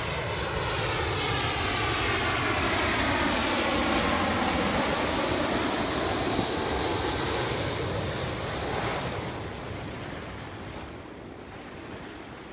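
Twin-engine jet airliner flying low overhead on final approach to land, its engine noise wavering in a sweeping whine as it passes, then fading away over the last few seconds.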